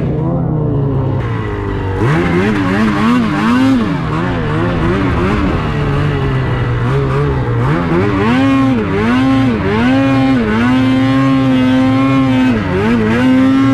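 Ski-Doo Freeride 850 two-stroke snowmobile engine revving up and down again and again as it is ridden through snow. The revs are held high and steady for a couple of seconds near the end, then dip and pick up again.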